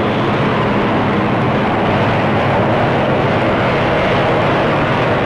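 Steady drone of propeller-driven aircraft engines in flight, heard on an old newsreel soundtrack.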